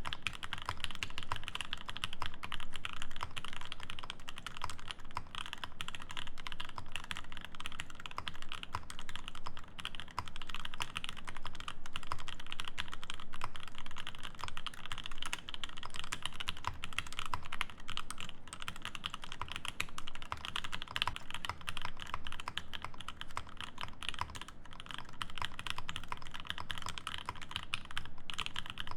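Continuous typing on an Acrylic Alice mechanical keyboard with an acrylic plate, lubed and filmed Alpaca V2 linear switches and GMK keycaps: a steady, unbroken run of keystrokes, with a brief lull about ten seconds in.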